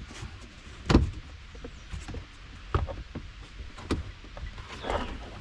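Hands working seatbelt and plastic trim parts inside a car: a few sharp knocks and clicks, the loudest about a second in.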